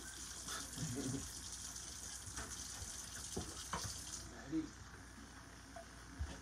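Kitchen tap running into a sink, shut off about four seconds in, followed by a short knock of something set down.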